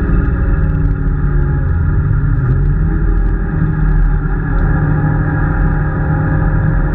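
Peugeot 205 rally car's four-cylinder engine heard from inside the cabin, running steadily at speed on track. Its note dips briefly about two and a half seconds in, then climbs again.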